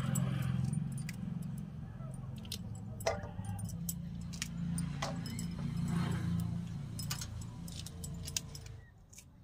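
Fresh sem (flat beans) being snapped and stringed by hand, a scatter of short crisp snaps, with glass bangles clinking on the working wrists. A steady low hum runs underneath, and the sound drops away shortly before the end.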